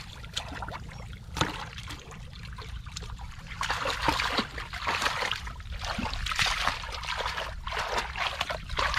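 Shallow muddy water splashing and trickling, with small wet clicks, getting busier from about three and a half seconds in.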